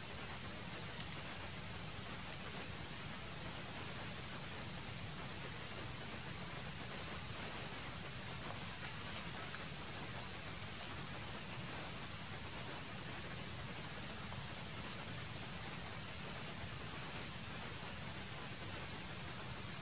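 A steady, high-pitched insect chorus, one unbroken drone, over faint even background noise.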